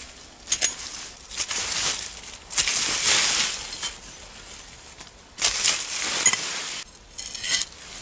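Fallen leaf litter rustling in several bursts as it is scraped and pushed aside with a large knife blade, with a few sharp clicks.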